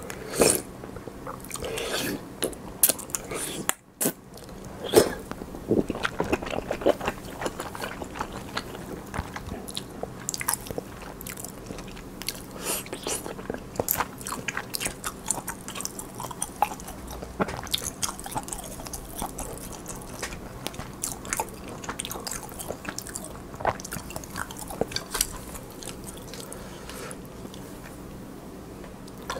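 Close-miked chewing and mouth sounds of someone eating altang, a spicy fish-roe soup with tofu: irregular wet smacks and clicks throughout, with a brief dropout about four seconds in.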